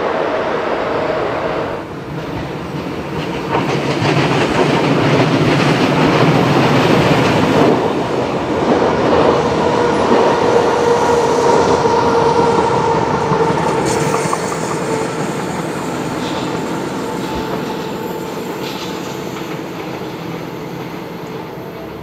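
Empty car-transporter freight train rolling through a tight curve, wheels clattering on the rails while the wheel flanges squeal as they ride up onto the outer rail, typical of wagons with a rigid wheelbase. The squeal is steadiest in the middle, and the whole sound slowly fades toward the end.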